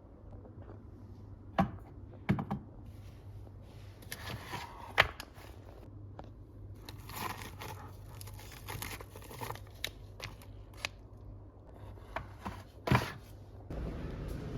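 Household handling sounds: rustling and crinkling with several sharp knocks and clicks, the loudest about a second and a half, two, five and thirteen seconds in.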